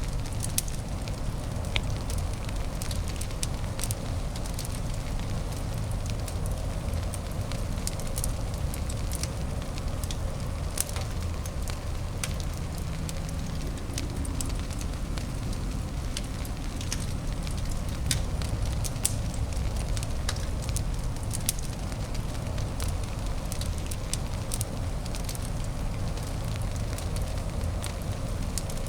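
Fireplace crackling: frequent short, sharp pops and snaps scattered at random over a steady low background noise.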